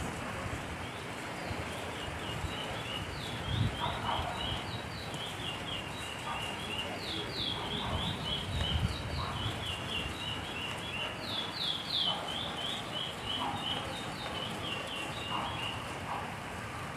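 Steady rain noise, with rapid runs of short, high, falling chirps from birds through most of it.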